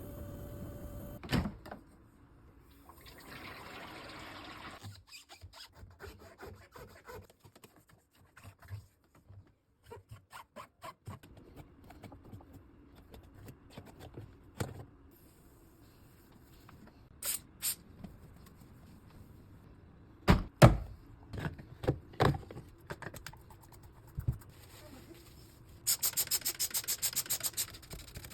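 Washing machine being cleaned by hand: water running briefly at the start, then clicks, taps and knocks of parts being handled, a few loud thumps about twenty seconds in, and a fast, even run of scratching strokes near the end.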